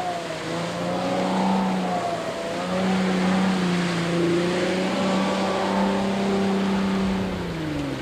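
Jetboat engine running at fairly steady revs, its pitch wavering a little, then sliding down near the end as the throttle comes off.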